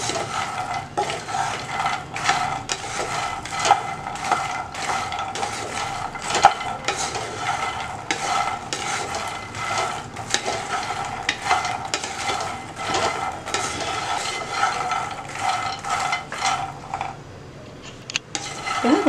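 A spatula stirring and tossing puffed lotus seeds (makhana) around a nonstick pan as they dry-roast on a low flame. It makes a quick run of light scraping, rattling strokes, two or three a second, which stops about two seconds before the end.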